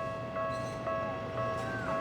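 Japanese railway level-crossing warning bell ringing, its electronic tone struck evenly about twice a second, signalling that a train is approaching and the crossing is closed.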